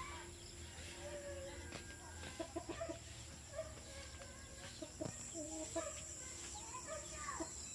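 Chickens clucking in short calls scattered throughout as they forage for bugs.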